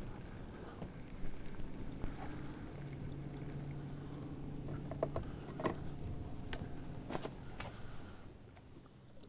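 Boat motor running with a steady low hum, with a few sharp clicks about five to seven seconds in while a hooked trout is played to the boat.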